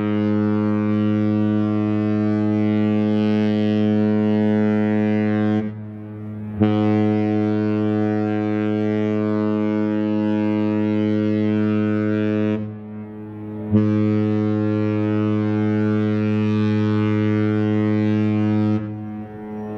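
Horn of the cruise ship Spirit of Discovery sounding three long blasts of about six seconds each, with short pauses between. Each blast is one deep, steady tone that starts and stops abruptly.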